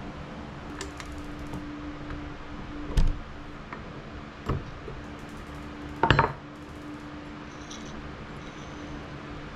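Metal tools and chainsaw parts clinking and knocking during hand disassembly of a STIHL 015L chainsaw: three sharp knocks about three, four and a half and six seconds in, the last the loudest, over a steady low hum.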